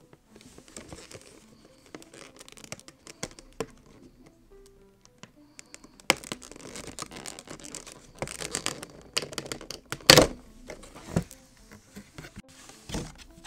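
Stiff clear plastic clamshell packaging being handled and pried open: crinkling, scraping and clicking plastic, with one loud sharp crack about ten seconds in as the shell snaps apart.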